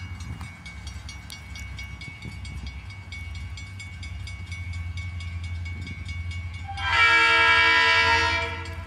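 Horn of an approaching train sounding one long, loud blast about seven seconds in, made of several pitches at once. Under it are a low steady rumble and a fast, even ringing.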